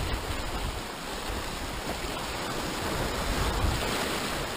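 Sea waves surging and washing over shoreline rocks, foaming water rushing across the ledge, with wind rumbling on the microphone.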